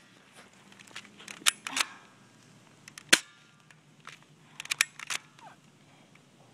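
Marines SR01 airsoft rifle firing single shots, short sharp cracks with a strong one about three seconds in. A few more clicks and knocks fall around it.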